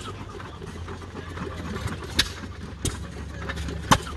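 A small engine idling steadily, with two sharp clicks about two seconds and four seconds in.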